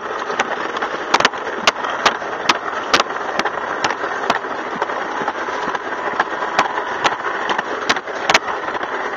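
Alpine slide sled running fast down its trough track: a steady rushing rumble, broken by sharp clacks about twice a second.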